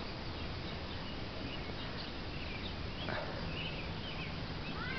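Quiet outdoor ambience: a steady background hiss with a few scattered short bird chirps, and a faint low hum that starts about three and a half seconds in.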